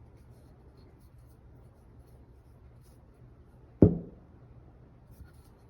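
A mallet strikes once, a single sharp knock with a short ringing decay about two thirds of the way in, against quiet room tone.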